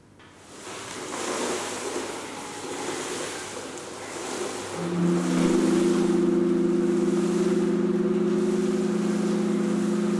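Homemade sound machine imitating a harbour: pebbles shifting in a wire-mesh container make a rushing wash of noise. About five seconds in, a steady low tone of several pitches sounding together joins it.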